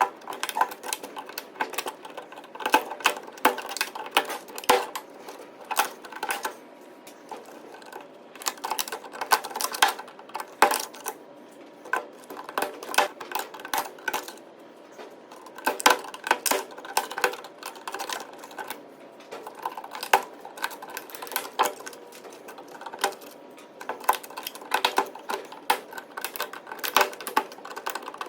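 Irregular clusters of sharp clicks and metallic clinks, hand tools working on metal parts while the power supply is taken apart, with brief lulls every several seconds.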